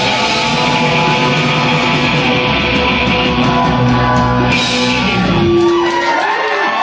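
Live rock band with electric guitars, bass and drum kit playing loud. About four and a half seconds in, a cymbal crash sounds, then the bass and drums drop away, leaving held, ringing guitar tones.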